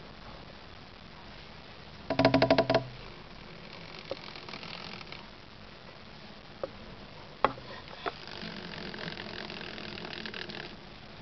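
Anerythristic corn snake's tail vibrating rapidly against bark-chip substrate: a brief, loud rattling buzz of quick taps about two seconds in, then a few sharp clicks and a softer rustling rattle later. This is the frightened snake's defensive tail-vibrating reflex, which mimics a rattlesnake's rattle.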